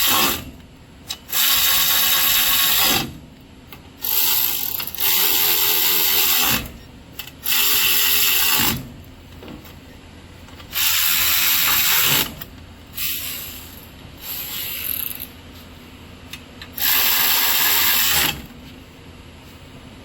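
Power driver with an 8mm socket running in short bursts of a second or so, about seven times, driving down the carburetor mounting bolts on a Kohler engine.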